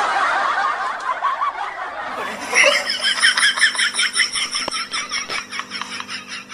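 A man's exaggerated comic vocal outburst in quick, choppy pulses of about four a second, with no words, fading toward the end.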